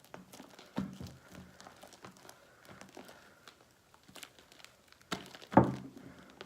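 Sticky glue-and-shaving-cream slime being kneaded and squished by hand just after detergent activator was added, a run of irregular wet squelches and little clicks, with two louder squelches about a second in and near the end.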